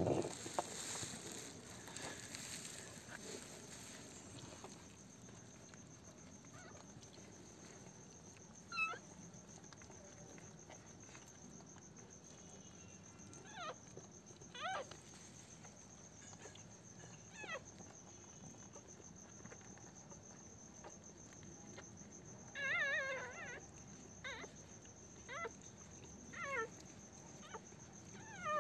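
Newborn Pomeranian puppies squeaking: short, high cries that drop quickly in pitch, scattered through, with a quick run of them about two-thirds in. A faint steady high whine runs underneath.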